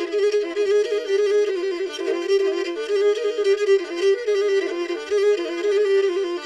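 Pontic lyra, the small three-stringed bowed fiddle of the Pontian Greeks, playing a quick-moving melody in an instrumental passage with no singing.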